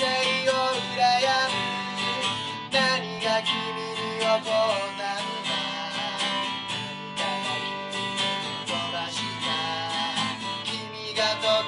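A man singing a Japanese folk-rock song while strumming an acoustic guitar in a steady rhythm.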